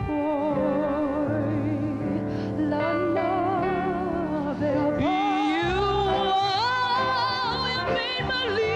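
A woman singing solo with wide vibrato over instrumental accompaniment. About five seconds in, her voice slides up into a higher held note.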